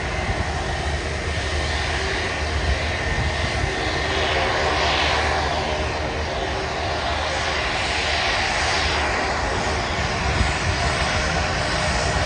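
Jet airliner engines at takeoff power: a steady low rumble under a hiss that sweeps up and down in pitch twice.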